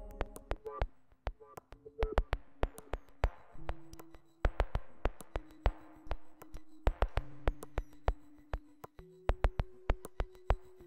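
Electronic dance score: sharp, irregular clicks over sustained synthesizer tones that step to a new pitch every second or two.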